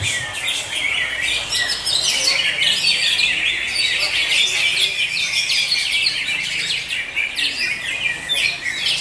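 Cucak hijau (green leafbird) singing a continuous, rapid stream of high chirps and trills.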